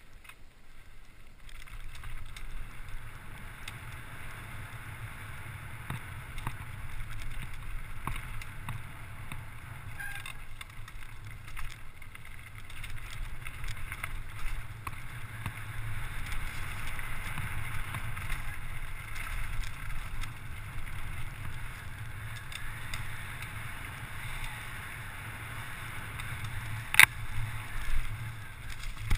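Enduro mountain bike descending loose rocky singletrack at speed: steady low wind rumble on the handlebar-mounted camera and tyres rolling over gravel, with scattered rattles and clicks from the bike. A single sharp knock stands out near the end.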